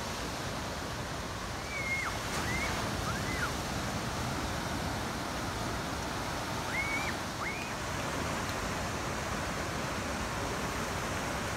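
Ocean surf washing and breaking against the shore, a steady rushing noise. A few short high chirps sound in two small clusters, about two seconds in and again about seven seconds in.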